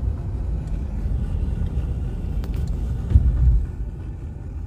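Road noise inside a moving car's cabin: a steady low rumble of engine and tyres, with a brief louder low thump about three seconds in.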